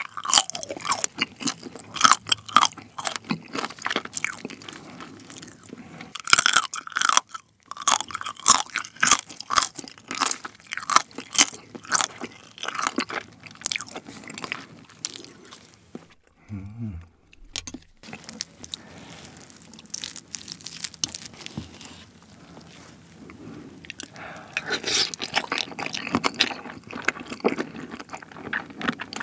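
Close-miked eating of soy-sauce-marinated raw crab (ganjang gejang): wet, irregular crunching and chewing as crab legs and shell are bitten, with a brief pause just past the middle.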